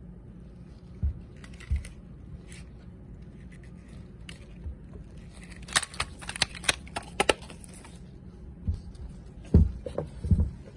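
Small hard clicks and knocks from handling a precision screwdriver tool set: a quick run of sharp clicks in the middle and a few heavier knocks near the end.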